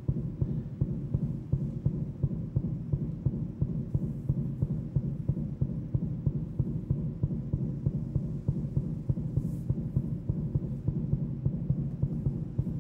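Low, heartbeat-like electronic soundtrack: a deep pulse repeating evenly a few times a second over a steady low hum.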